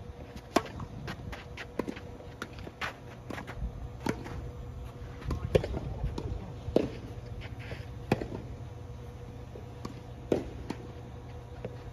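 Tennis ball struck by racket on a serve about half a second in, then a rally of sharp racket hits and ball bounces, one every second or so, over a steady low hum.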